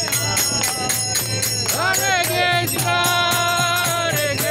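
Kirtan: a group singing a devotional chant over a steady beat of claps and jingling hand percussion, with ringing metallic tones.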